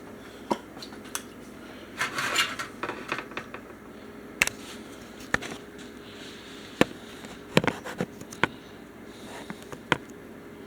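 Kitchen utensils and cookware being handled: scattered, irregular clicks and knocks as items are picked up and set down, with a brief rustle about two seconds in.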